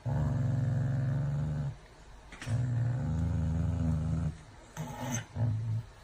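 Corgi growling in long, low rumbles, two drawn-out growls followed by two short ones near the end.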